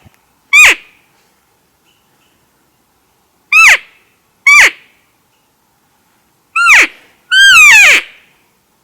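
Cow-elk mew calls: five short, high-pitched mews, each sliding sharply down in pitch, spaced a second or more apart, the last one longer and rougher.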